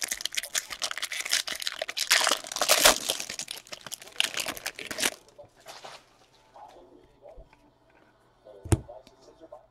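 Foil wrapper of a baseball card pack being torn open and crinkled, loud and busy for about five seconds, then quieter handling of the cards with a single sharp tap near the end.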